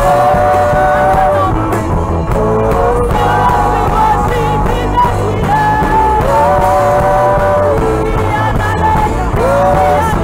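Live gospel worship song: a woman's lead voice and backing singers over band accompaniment, with long held sung notes.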